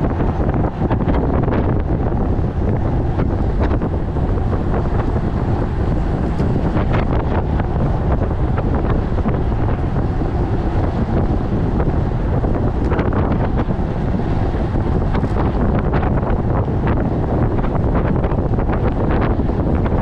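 Wind buffeting the microphone of a camera on a road bike riding at about 25 mph: a steady, loud low rumble.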